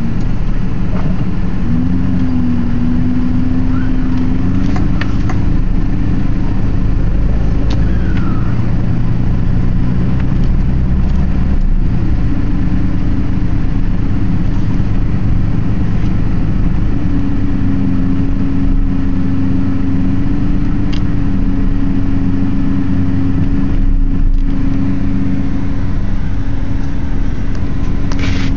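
Car engine and road noise heard from inside the cabin while driving, a steady hum whose pitch shifts a little now and then as the speed changes.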